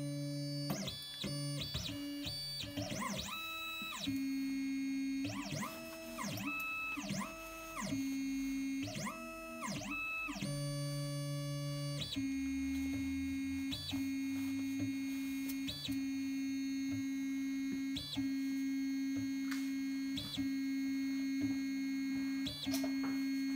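CGDI Godzilla automatic key cutting machine decoding a key blade, its stepper motors whining as the probe traces the cuts. In the first half the whine repeatedly rises in pitch, holds, then falls as the carriage speeds up and slows between moves. After that it settles to a steadier hum broken by short blips every second or two.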